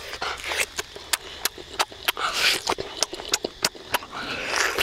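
Close-up eating sounds from biting and chewing roasted duck: wet mouth clicks and lip smacks about three or four times a second, with three short slurps, the first about half a second in, one midway and one near the end.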